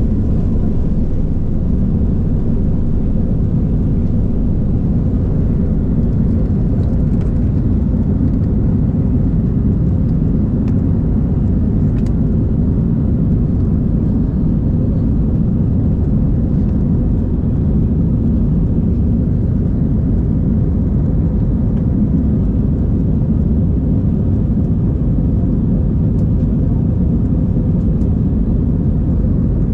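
Jet airliner's engines at takeoff power, heard inside the cabin as a steady, loud, deep rumble through the end of the takeoff roll and the initial climb.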